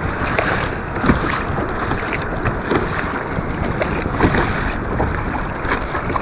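Wind buffeting the microphone over water splashing and lapping around a kayak at sea, steady with small irregular splashes.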